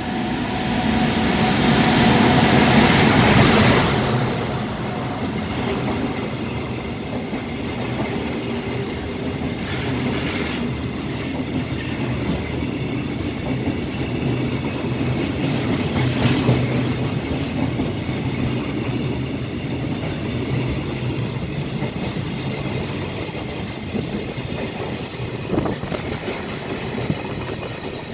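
JR Freight EF510 electric locomotive passing at speed, loudest about two to four seconds in, followed by a long string of container wagons rolling past with a steady rumble of wheels on rail. A few sharp knocks come from the wagons along the way.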